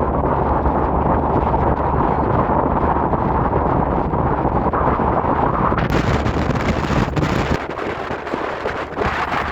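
Strong wind buffeting the microphone, a heavy low rumble. About six seconds in, a hiss comes in over it, and the rumble eases shortly after.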